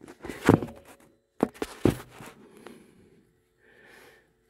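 A few sharp metallic knocks and clatters from a ratchet and Allen-bit extension being worked off the front differential's loosened fill plug: one about half a second in and a quick cluster around one and a half to two seconds in, then faint rustling.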